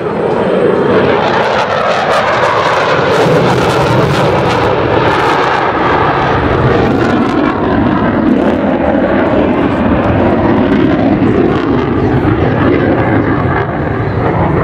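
F/A-18 Super Hornet jet engines running at high power in a low pass, a loud continuous rushing noise with a crackling edge from about two to six seconds in.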